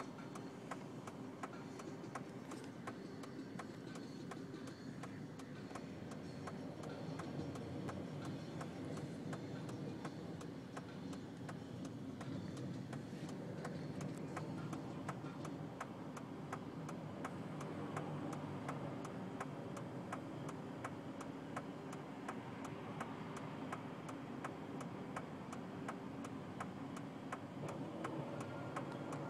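Regular ticking over a low, steady rumble.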